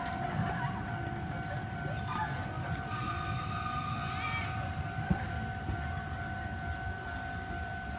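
A Chichibu Railway electric train running in toward a station platform with a low rumble. A steady high ringing tone runs throughout, and a short pitched sound rising in pitch comes about three to four seconds in.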